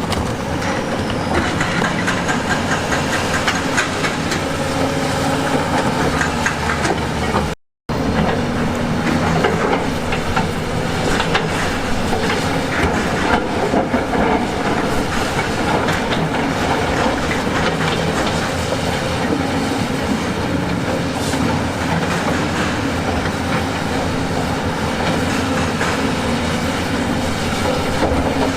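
Heavy construction machinery working rock: a diesel engine running under load with continuous metallic clatter and scraping of steel on stone. There is a brief gap in the sound about eight seconds in.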